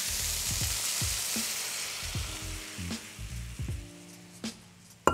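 Soy-based sauce poured into a hot frying pan of searing chicken and potatoes, setting off a loud sizzle that dies away over a few seconds as the pan cools to a simmer.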